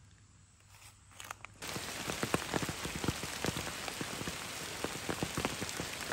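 Steady rain, with many close drops pattering. It starts abruptly about a second and a half in, after a quiet start.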